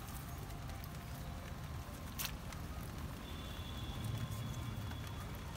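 A wet cast net being handled in mud: rustling and crackling with scattered clicks and one sharper click a little over two seconds in, over a low rumble. A thin steady high tone comes in about three seconds in and lasts under two seconds.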